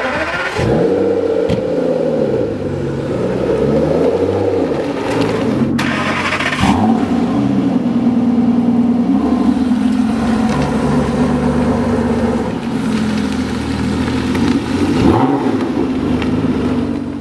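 Aston Martin V12 engine firing up, blipped a few times as it catches, then idling with further rev blips about six seconds in and near the end. A sharp click sounds about six seconds in.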